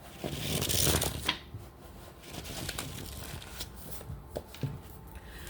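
A deck of oracle cards being shuffled by hand: a dense riffle of card rustling for the first second and a half, then softer rustling with a few light clicks as the cards are handled.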